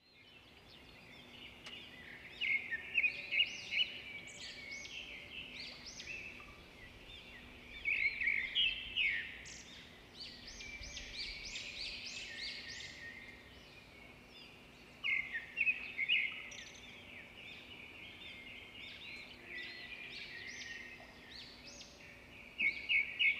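European robin singing: several bursts of rapid, high, varied notes with short pauses between them, over a faint steady low hum.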